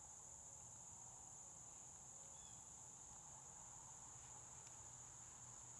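Faint, steady, high-pitched chirring of insects, crickets, running without a break over a near-silent background.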